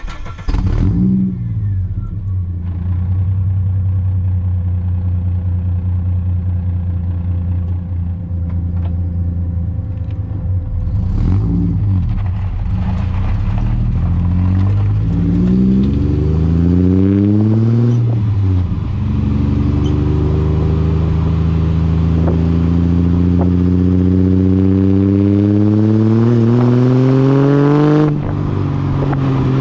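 Ford AU Falcon's 4.0-litre inline six breathing through Pacemaker extractors, a high-flow cat and a 2.5-inch cat-back exhaust. It comes to life loudly at the start and runs at a steady idle, gives one rev blip, then runs through three short rising pulls. A long, steady climb in revs follows and cuts off suddenly near the end.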